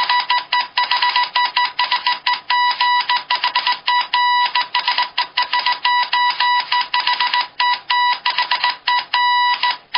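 Morse code: a steady tone near 1 kHz keyed rapidly on and off in short and long beeps (dots and dashes) with brief gaps, over a faint hiss.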